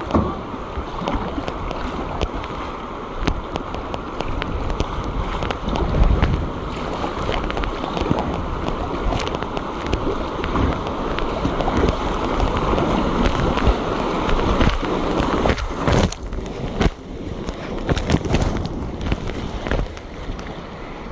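Whitewater kayak being paddled down a river riffle: steady rushing and splashing of moving water around the hull and paddle blades. A few sharp knocks come about two-thirds of the way through.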